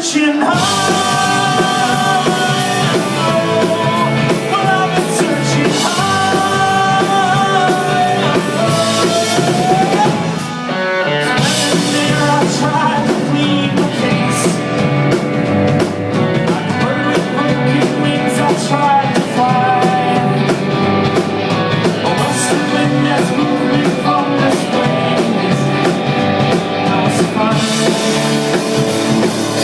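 Rock song with a drum kit keeping a steady beat under a singing voice that holds long notes and slides up between phrases.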